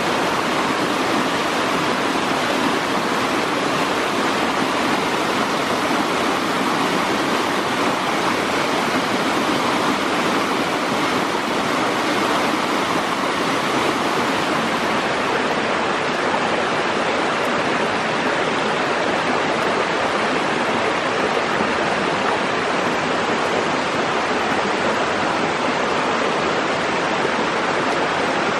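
Rushing stream water: a steady, unbroken rush of flowing water.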